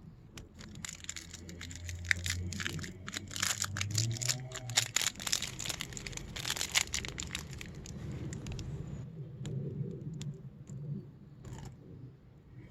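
Close-up eating sounds of a Twix ice cream bar: its chocolate coating crackling and crunching while it is bitten and chewed, dense for most of the first nine seconds. Softer, wetter chewing follows, with a brief crunch again near the end.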